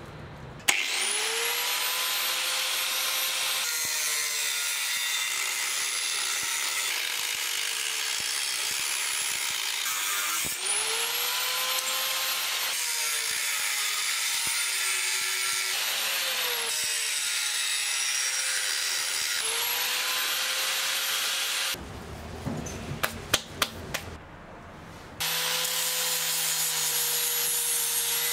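Electric angle grinder with a thin cut-off disc cutting through thin sheet metal. The motor whine climbs as it spins up and sags while the disc bites into the plate. About 22 s in it stops for a few seconds, with a few sharp clicks, then runs steadily again.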